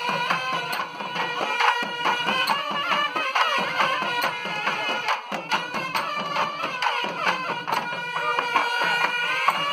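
Tamil folk temple music: magudi reed pipes play a bending melody over a steady drone, with drums beating.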